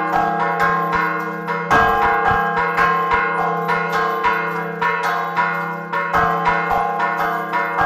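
Church bells rung in a fast repique: several bells struck in quick succession, their tones overlapping over the steady hum of a lower bell, with a heavier stroke about two seconds in and again near six seconds.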